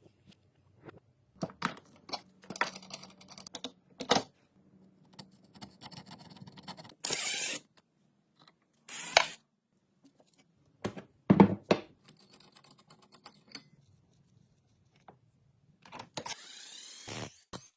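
Metal parts and tools being handled in a workshop: scattered knocks and clinks, the loudest a little past the middle, with two short hissing bursts about seven and nine seconds in and a longer one near the end.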